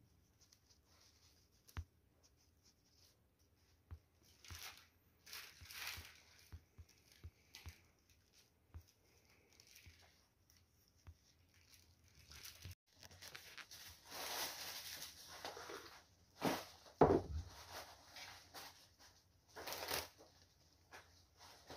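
Hands working fresh flowers and cellophane wrap into a funeral wreath: intermittent rustling and crinkling with light clicks, in several short bursts and one louder knock about two-thirds through.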